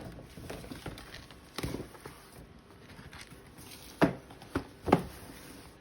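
A cardboard shoebox being handled: rustling and light scraping, then a few sharp knocks, with the loudest two about four and five seconds in.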